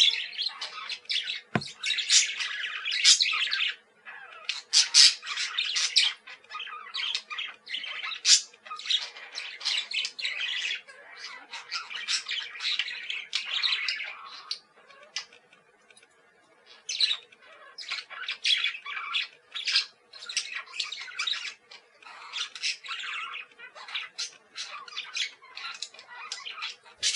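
A group of parakeets calling: quick, high chirps in dense runs broken by a few short pauses. A single low thump about a second and a half in.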